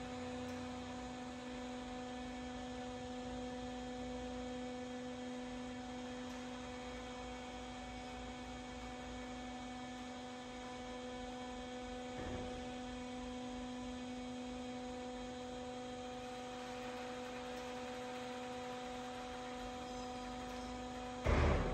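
Steady electric hum of a hydraulic pipe-crushing press's power pack running at rest, one even tone with overtones. There is a faint knock about halfway through and a short loud thump near the end.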